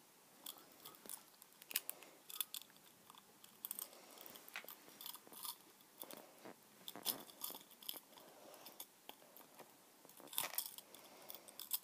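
Irregular small clicks, taps and crinkly rustles of hands fumbling one-handed to get a pocket watch open.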